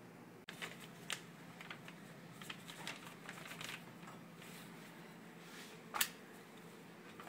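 Scattered light clicks and taps from kitchen handling, with one sharper click about six seconds in.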